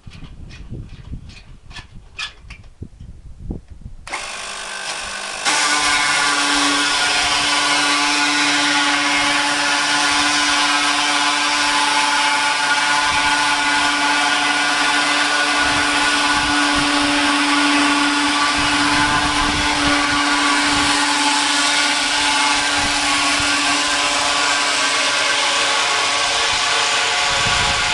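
A few sharp clicks, then a chain sawmill starts up about four seconds in and steps up a second later to a loud, steady run with a constant whine.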